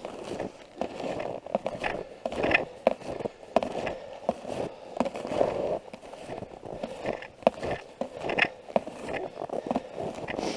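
Snowshoe footsteps crunching and scraping through cold snow at an uneven pace, with sharp clicks from the frames and bindings.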